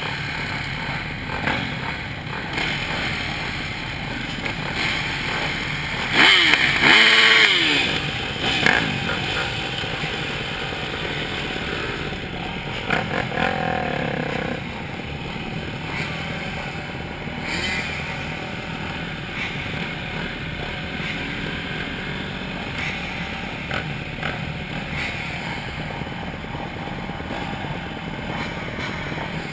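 Several motocross bike engines running at low revs in a slow-moving queue. About six seconds in, one bike close by revs loudly, its pitch sliding, before the steady running resumes.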